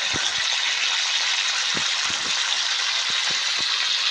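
Chopped onion, green chilli and ginger-garlic paste frying in hot oil in a wok: a loud, steady sizzling hiss with a few faint knocks.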